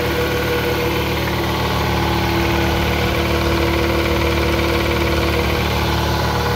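A 60-gallon Husky air compressor running steadily just after start-up: the electric motor drives the pump through a freshly replaced, tensioned V-belt. It is being test-run to see whether the belt squeal and bogging have been cured.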